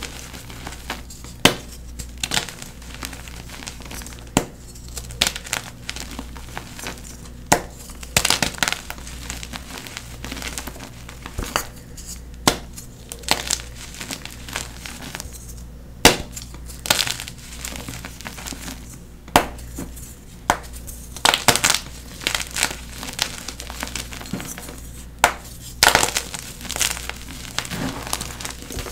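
Dyed NEXO gym chalk blocks being crumbled and crushed: irregular sharp crunches and crackles, some single loud snaps and some quick clusters of small cracks.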